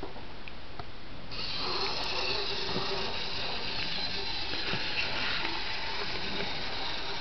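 Battery-powered Tomy Trackmaster Thomas toy engine switched on about a second in, its small electric motor and gears whirring steadily as it runs along the plastic track. The model is a few years old and runs poorly, probably in need of cleaning and a service.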